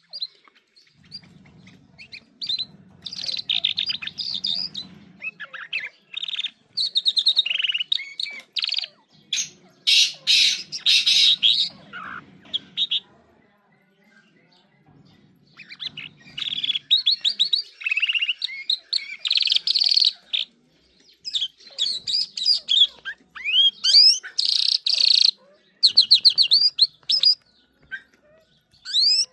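A songbird that the uploader calls an Irani jal sings in quick bursts of high chirps and rapid trills, with a short pause about midway.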